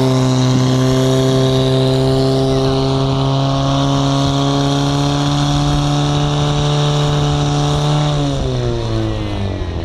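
Portable fire pump engine running at high revs, a steady drone, pushing water through the attack hoses to the nozzles. About eight seconds in, its pitch falls as it is throttled back.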